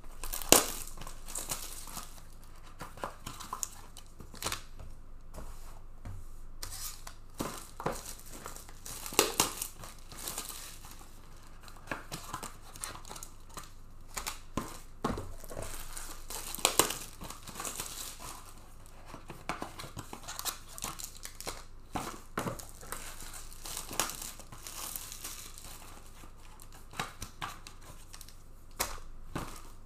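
Plastic wrapping on trading-card boxes and packs being torn and crinkled by hand, in irregular crackly spells with a few louder rips.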